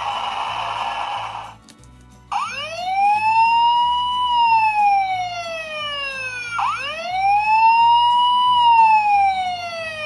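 Tonka toy fire truck's electronic siren sound effect: two slow wails, each rising then falling, starting about two seconds in. Before it, a hissing noise cuts off about a second and a half in, with faint background music underneath.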